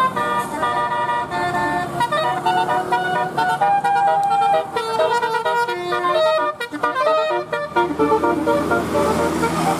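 Telolet horn on a bus: a multi-trumpet musical air horn playing a quick melody of short stepped tones. A low steady hum comes in under it near the end.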